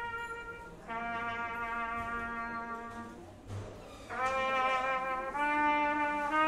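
Brass instruments playing a slow phrase of long held notes, each lasting one to two seconds, with a short break a little over three seconds in.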